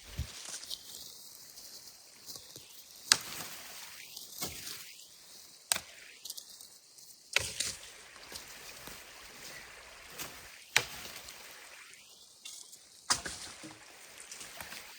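Five sharp knocks, a few seconds apart, over a faint steady hiss.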